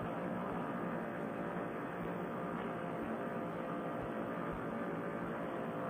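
Paramotor trike's engine and propeller running steadily in flight, a continuous drone, muffled through the pilot's Bluetooth headset microphone.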